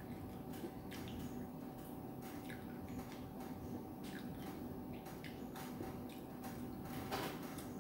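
Faint scattered small clicks and soft handling noises over a steady low room hum, with one slightly louder click near the end.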